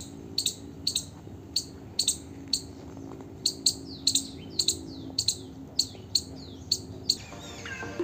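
A small animal's sharp, high chirps repeating about twice a second, some sliding downward in pitch, over a faint steady low drone.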